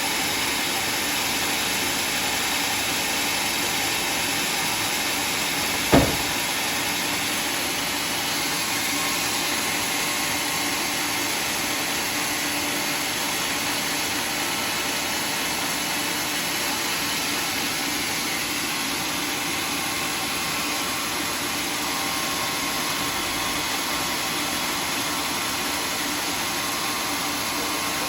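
Sawmill saw machinery running steadily with a constant hum and hiss while sawing teak logs, with one sharp knock about six seconds in.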